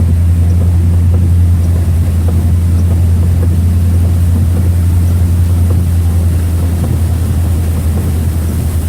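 A vehicle's engine and tyres heard from inside the cab as a steady low drone with an even hiss over it, driving on a flooded road.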